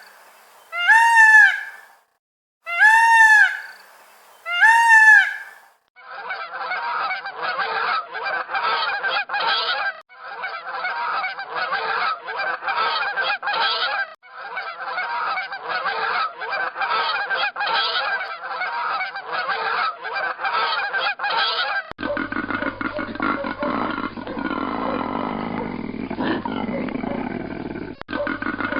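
Geese honking: three loud, separate arched calls in the first few seconds, then a flock's dense, continuous honking. About 22 seconds in it changes to a different recording with a low hum underneath.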